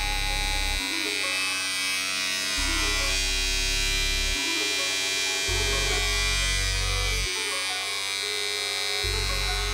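Bevel Pro cordless clipper-trimmer running, a steady electric buzz. Background music with a bass line that comes and goes every couple of seconds plays under it.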